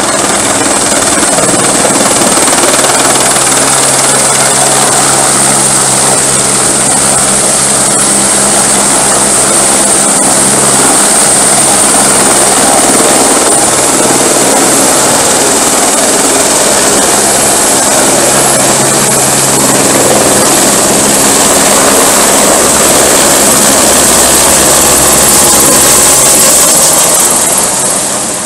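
Firefighting helicopter with a slung water bucket hovering low overhead, rotors and turbine running loud and steady with a high whine above the rotor beat, while it fills its bucket from the river. The sound fades near the end as it climbs away.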